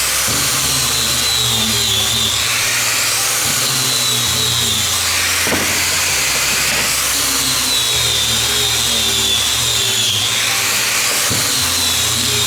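Power tool running steadily, its pitch wavering slowly, over background music with a stepping bass line.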